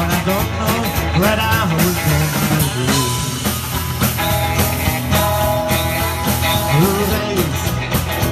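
Live rock and roll band playing an instrumental break: strummed acoustic guitar, electric guitar lead with bending notes, bass and drums.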